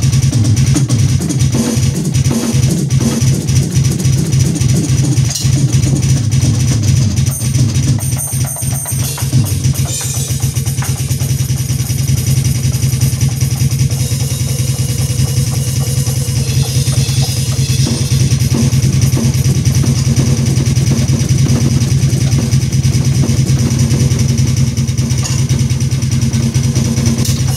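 Alesis electronic drum kit being played: a dense, steady run of bass drum pedal strokes under drum and cymbal hits, a foot warm-up on the bass pedals.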